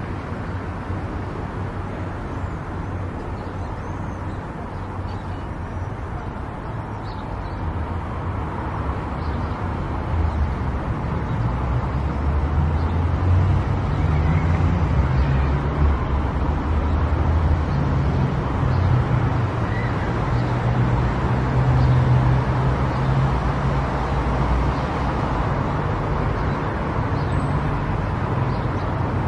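Car driving on a road: a steady low rumble of engine and tyre noise that grows louder about ten seconds in.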